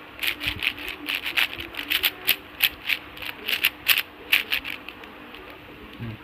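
A 6x6 speed cube being turned quickly by hand: a fast run of light plastic clacks as its layers snap round, stopping about five seconds in.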